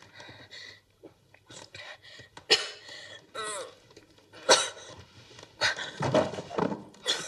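A girl's sharp gasping breaths, a short whimper and a low groan, acted as the pain of heroin withdrawal.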